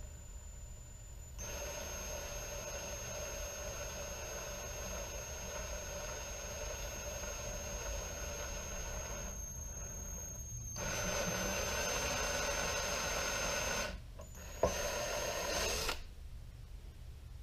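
Ryobi cordless drill running with its bit boring into a hollow synthetic rifle stock: a steady motor whine that starts about a second in. It speeds up and gets louder about two-thirds of the way through, stops briefly, then gives one short last run before cutting off near the end.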